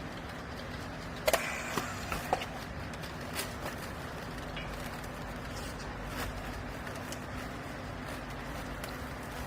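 Wiper-rag compress baler running with a steady machine hum. A few sharp metallic clanks come about a second in.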